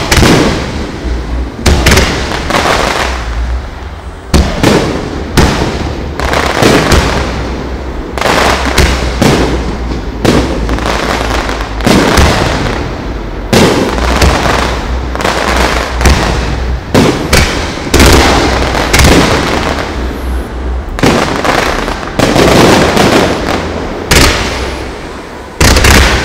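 Aerial firework shells bursting in a steady barrage: loud sharp bangs following one another about every second, each trailing off in an echo.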